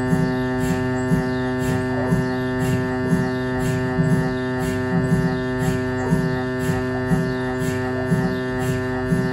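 Siemens Magnetom Avanto 1.5 T MRI scanner's gradient coils running a scan sequence: a steady, many-toned hum with a regular pulse about twice a second.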